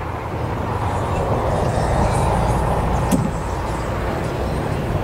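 Business jet engine noise growing louder as the aircraft passes, loudest about two to three seconds in and then easing slightly, with a low rumble beneath and one sharp click about three seconds in.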